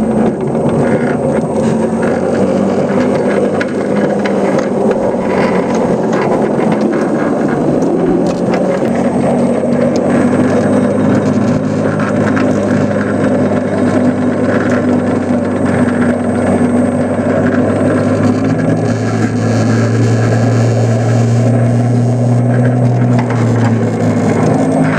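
Scratchbuilt 5-inch gauge Whitcomb ride-on locomotive running along the track: a steady drive hum that shifts in pitch about a third of the way in and again near the end, with wheel and track rattle underneath.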